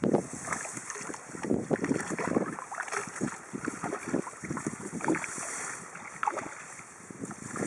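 Water splashing and sloshing in irregular bursts in the shallows at a riverbank as a large fish thrashes beside the angler's hand, starting abruptly.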